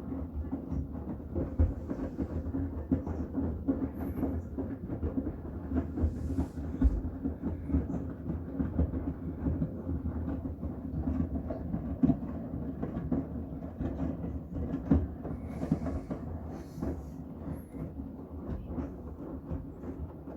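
Miele WCR 870 front-loading washing machine running a Cotton wash with a load of bath towels: a steady rumble from the turning drum, broken by irregular thuds as the load tumbles.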